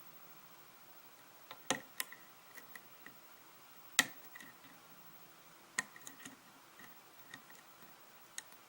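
Light, irregular metallic clicks of a lock pick working the pin stack of a Kwikset-keyway pin-tumbler lock under a tension wrench, the loudest about four seconds in.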